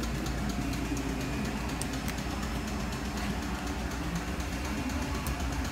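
A steady low mechanical hum or rumble with no breaks, like an engine or machine running.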